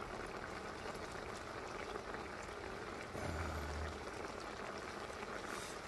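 Mackerel and radish braise bubbling and sizzling steadily in a wide black iron pan. A short low hum comes in about three seconds in.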